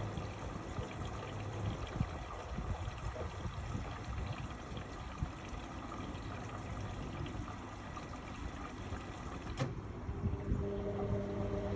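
Indesit MyTime EWE 71252 washing machine running, with water pouring and trickling in. A sharp click comes near the end, followed by a steady hum.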